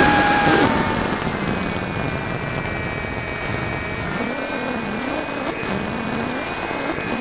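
Electric motor and propeller of an RC airplane, heard from a camera carried on the plane, whining steadily over wind rush. About half a second in the whine drops in level and its pitch shifts, and a fainter, higher whine carries on.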